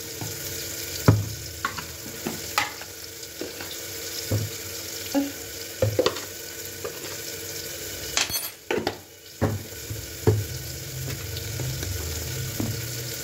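A steel spoon taps and clinks against a small steel bowl several separate times as powdered spices are spooned into curd. Under it runs a steady sizzle of tomatoes frying in a pressure cooker.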